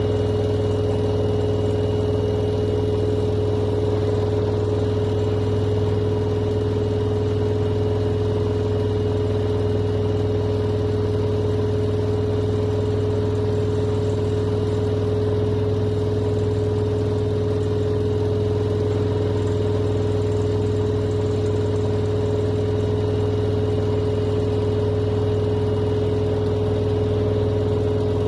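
Washing machine running with a steady motor hum.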